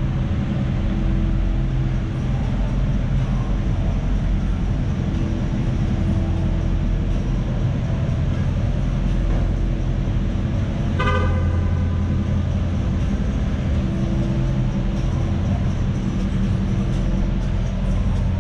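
Car engine running steadily, with one short car horn toot about eleven seconds in.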